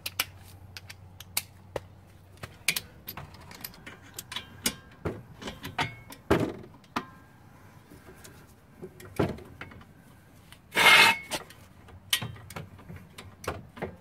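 Steel socket tools clinking and rattling as a torque wrench, socket and extension are handled and set on a brake caliper bolt: many short sharp clicks, with one louder rasping burst of about half a second near the end.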